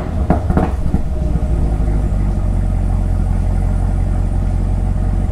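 2023 Camaro ZL1's supercharged LT4 V8 on its factory exhaust, just started: a few uneven pulses in the first second, then a steady idle.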